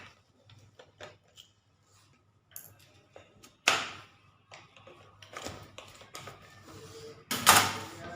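Scattered clicks, taps and scrapes of a laptop's plastic case and screws being worked open with hand tools, with a louder scrape or clatter about three and a half seconds in and again near the end.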